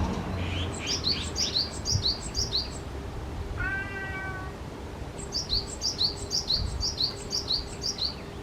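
A bird calling in two quick runs of about eight high, sharp, falling notes each. Between the runs comes one short mewing call.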